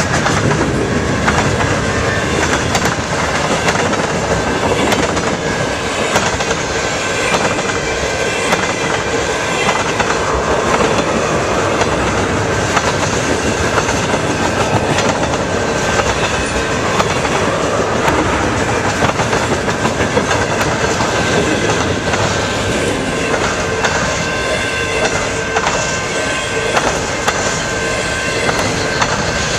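CN freight train's cars rolling steadily past, wheels clicking over the rail joints in a continuous clickety-clack with a thin, steady high ring underneath.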